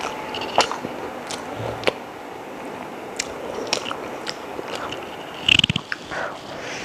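A person eating chicken biryani close to the microphone: wet chewing and biting with scattered sharp mouth clicks, and a louder cluster of crunches and a thud a little past five seconds in.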